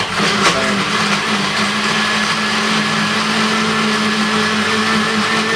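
Countertop blender running at one steady speed with a steady motor hum, churning mango, spinach and coconut milk into a smoothie.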